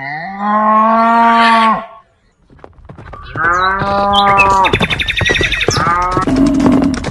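Cow mooing twice: two long moos with a gap of about a second and a half between them. After the second moo there is a busier stretch of clicks and higher tones.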